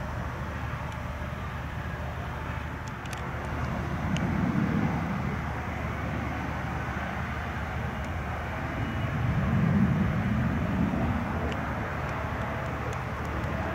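Steady rushing noise of jet aircraft engines running at an airport, with two louder low swells about four and ten seconds in.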